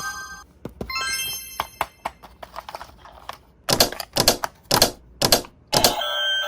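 A run of light plastic clicks and then about half a dozen sharper clacks, typical of plastic toy track and playset parts being handled. Electronic music or toy jingle tones sound at the very start and come back near the end.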